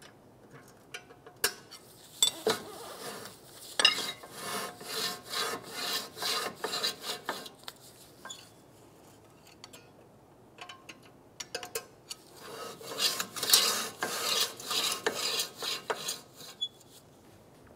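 Metal scraping and clicking in two stretches, as the 2012 Subaru Impreza's parking brake star-wheel adjuster is backed off a few clicks through the rear rotor's access hole and the rotor is turned by hand. The parking brake shoes rub inside the rotor's drum.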